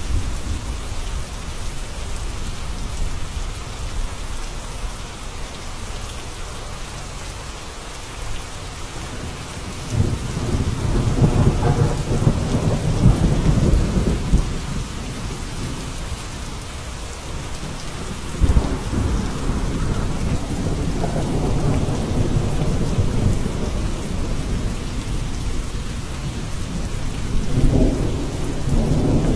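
Steady rain falling, with thunder rumbling low three times: a long roll starting about a third of the way in, another beginning with a sudden crack past the halfway point, and a shorter one near the end.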